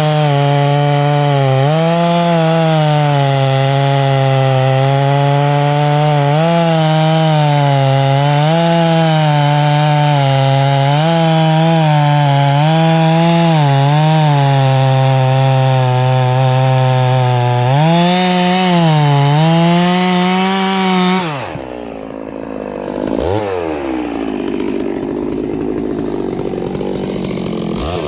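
Neo-tec NS892 two-stroke chainsaw with .404 chain cutting through a log at high revs, its pitch dipping and recovering every second or two under load. About 21 seconds in the revs drop away to idle, with one brief blip of the throttle, and it revs up again at the end.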